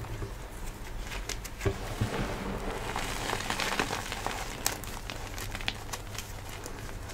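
Crushed dyed gym chalk powder being scooped up, squeezed in both hands and crumbled back onto the pile: a soft crunching hiss peppered with many small sharp crackles, thickest around the middle.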